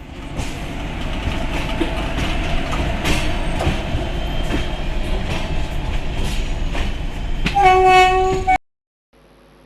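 Express train hauled by an Indian Railways WAP-4 electric locomotive passing at speed: a loud, steady rumble with wheels clacking over the rail joints. Near the end the horn sounds for about a second, and then the sound cuts off abruptly. After a short silence a faint steady hum begins.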